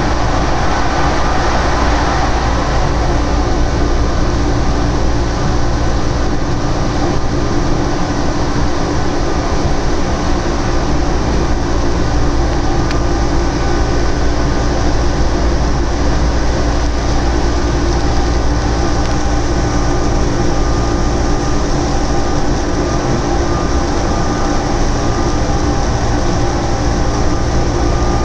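Orlyval's VAL 206 rubber-tyred automated light metro running at speed, heard from inside the car: a steady rumble of the tyres on the guideway under a steady motor hum, a little brighter in the first couple of seconds as it leaves an underpass.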